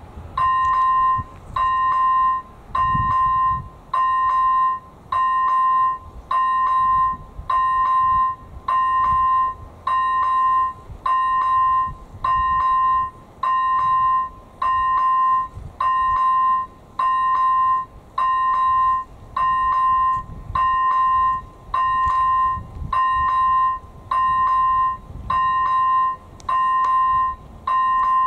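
Level-crossing electronic warning bell (AŽD ZV01 e-bell) ringing a single tone about once a second, starting about a second in: the crossing has been activated to warn of an approaching train.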